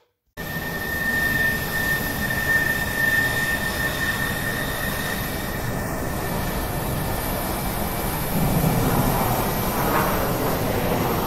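Parkside PGS 500 A1 corded electric die grinder running at high speed, grinding rusty square steel tube with a small attachment and throwing sparks. It starts abruptly with a steady high whine that fades after a few seconds, and the grinding gets louder near the end.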